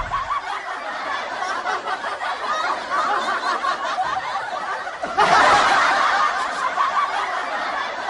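Laughter from many people, steady and dense, jumping louder about five seconds in.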